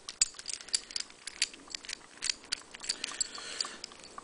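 Small metal clicks and clinks of a Blue Spot disc detainer padlock and its keys being handled and the key worked in the lock: a quick, irregular run of sharp ticks.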